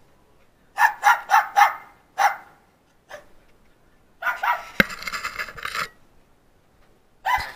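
A small white pet dog barking: four sharp barks in quick succession about a second in, another just after, then a quicker, noisier string of barks lasting nearly two seconds in the middle, and one more bark near the end.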